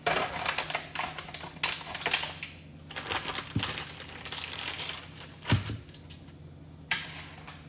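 Aluminium foil crinkling and rustling in quick bursts of crackles as it is handled, followed by a knock and a sharp click near the end.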